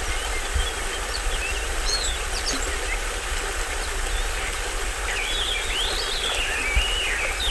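Steady rush of water from a small stream waterfall, with tropical forest birds chirping and whistling over it, the bird calls getting busier in the last couple of seconds.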